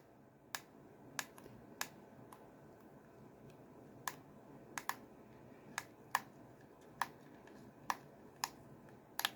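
Plastic buttons on a WR321 weather radio being pressed, giving about a dozen sharp, uneven clicks. The clacky sound is taken as a sign of horrible build quality.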